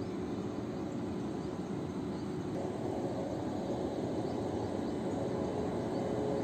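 WAP7 electric locomotive running slowly up to the train to couple, a steady mechanical hum with a faint steady tone, slowly getting louder as it comes closer.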